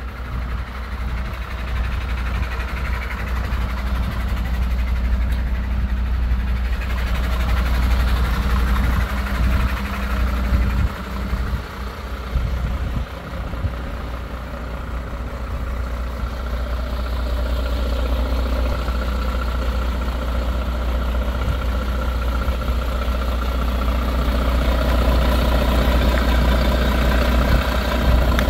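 MAN TGL 12.250 truck's six-cylinder diesel engine idling steadily, louder near the end.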